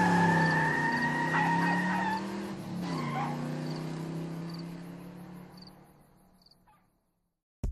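End of a song in the background music: held, gliding electronic tones fading out and gone about six seconds in.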